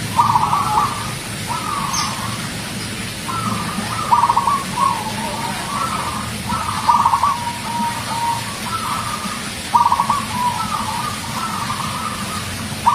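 Zebra dove (perkutut) singing: a run of repeated cooing phrases, each opening with a quick stuttering trill and ending in a drawn-out coo, over a low steady hum.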